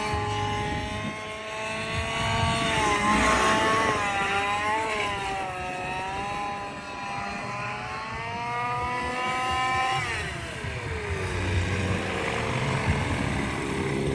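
Gas-engine radio-controlled helicopter with a Quietpower muffler in flight: the engine note rises and falls in pitch with the throttle, then drops steeply about ten seconds in.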